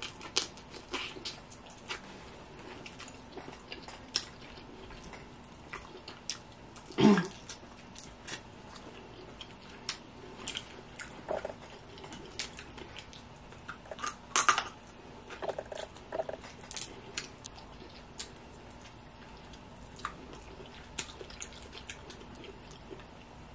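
Steamed blue crab shells being cracked and picked apart by hand, with scattered small snaps and clicks mixed with chewing; two louder ones come about seven and fourteen seconds in.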